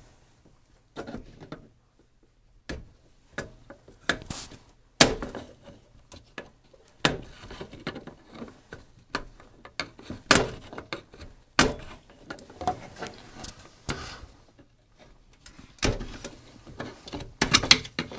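Irregular clicks, knocks and scraping of hand work on the Aprilaire 800 humidifier's steam canister housing as the old gasket is worked loose by hand, without pliers, with a few sharp knocks standing out.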